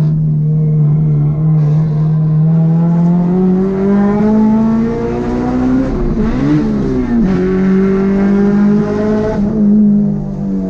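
Car engine running under way: a steady note that climbs in pitch over a few seconds, wavers briefly about six and a half seconds in, then holds steady at a slightly higher pitch.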